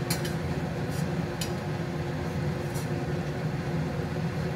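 A steady low mechanical hum with a constant tone, with a few light ticks scattered through it.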